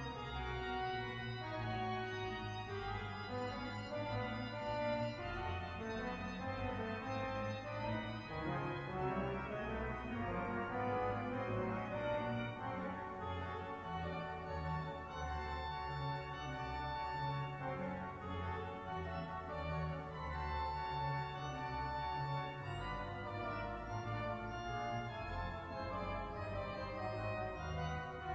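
Pipe organ playing a piece of classical organ music: full held chords over a moving bass line in the pedals.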